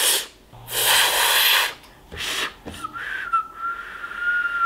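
A woman whistling through pursed lips: first a few breathy puffs of air with no note, then from about three seconds in a single steady whistled note.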